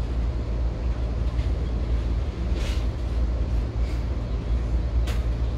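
Steady deep rumble of a moving vehicle heard from inside its cabin, with a few faint sharp ticks or rattles.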